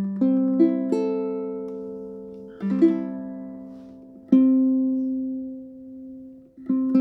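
Tenor ukulele played solo: a few quick plucked notes at the start, then fresh notes and small chords every one to two seconds, each left to ring out and fade.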